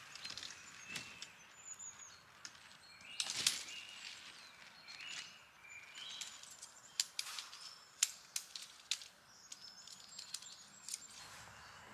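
Faint chirps of small woodland birds, with scattered sharp clicks and snaps, loudest about three and a half seconds in and again around seven to nine seconds.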